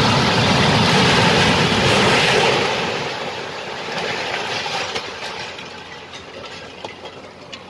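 A six-storey apartment building collapsing during demolition: a sudden loud crash and rumble of falling concrete that fades after a few seconds into scattered clatter of settling debris.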